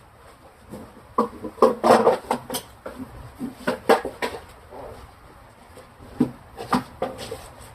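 Irregular knocks, clicks and short scrapes of hard refrigerator parts (shelves, drawers, bins) being handled and scrubbed, in clusters with a brief lull in between.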